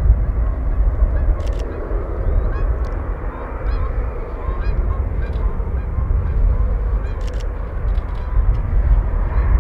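Geese honking repeatedly over a steady low rumble from an Airbus A350-941 on final approach to land.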